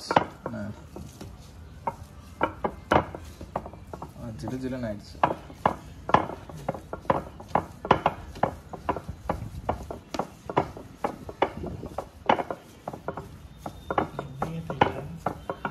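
Irregular sharp knocks and taps on a hard kitchen surface, a few each second, with rubbing and handling noise between them, as porotta dough is worked.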